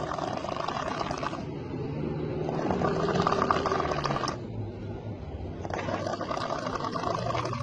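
A person snoring, one rough, rasping breath after another.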